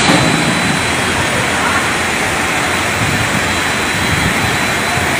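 Loud, steady rush of fast-flowing floodwater and pouring rain, an even noise with no pitch.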